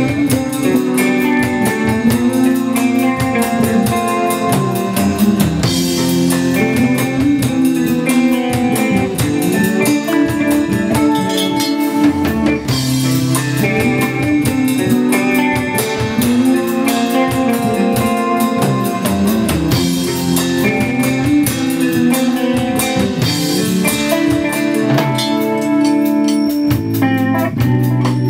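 Live instrumental jazz-rock fusion: electric guitar playing over a drum kit with busy cymbals and a low bass part underneath, continuous and loud.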